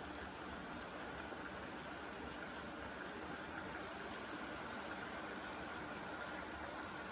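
Model railroad freight cars rolling past on the track: a steady rolling noise of their wheels on the rails.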